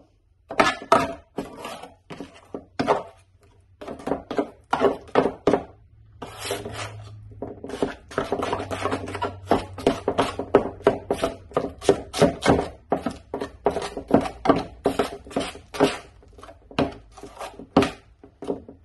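Metal putty knife scraping and knocking against a metal pan while mixing Feather Finish cement paste with water. It makes a quick, irregular run of clicks and scrapes.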